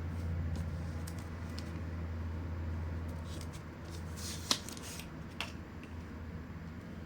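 Handling noises: a brief rustle and a few sharp clicks, the loudest about four and a half seconds in, over a steady low hum.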